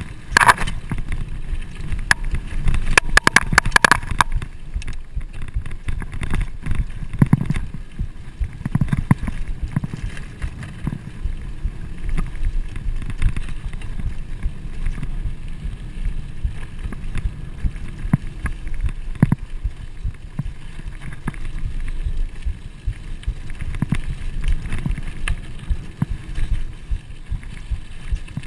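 Trek Fuel EX full-suspension mountain bike riding fast over a dirt trail: a steady rough rumble of tyres and wind buffeting the camera microphone. Over it come sharp rattles and clacks from the bike jolting over bumps, thickest in the first few seconds.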